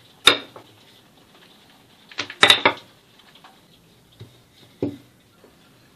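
Wooden rolling pin rolling out soft bread dough on a worktop, giving a few short knocks and taps as it is worked: one just after the start, a louder cluster about halfway through, and two lighter ones near the end.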